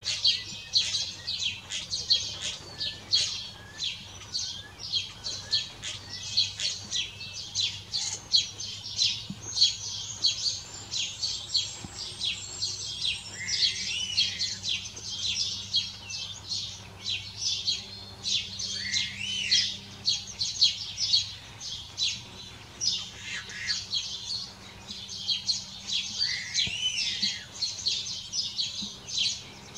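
Common starlings singing: a fast, unbroken stream of clicks, chirps and rattling chatter, with a few looping whistled glides mixed in.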